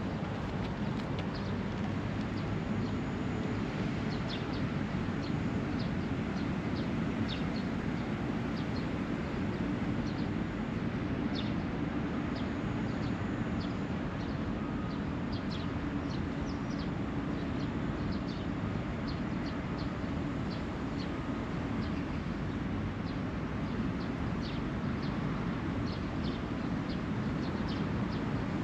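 Outdoor park ambience: many short, scattered bird chirps over a steady low rumble of distant traffic.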